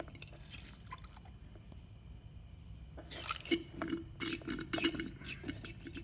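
Bulb-type battery hydrometer drawing electrolyte from a cell of a flooded lead-acid deep-cycle battery: small liquid gurgles and clicks as the rubber bulb is worked, mostly in the second half. This is a specific-gravity check of the battery's state of charge.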